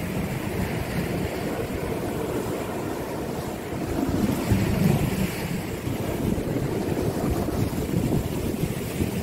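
Wind buffeting the microphone over sea waves washing against a concrete seawall: a steady rushing noise that swells briefly about four seconds in.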